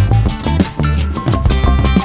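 Upbeat background music with plucked guitar-like notes, percussion and a strong bass line, in a Latin, salsa-like style.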